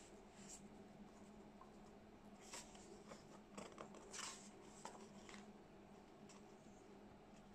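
Faint rustling and soft flaps of thick glossy pages in a hardback picture book being turned by hand, a handful of short rustles in the middle seconds, over a low steady hum.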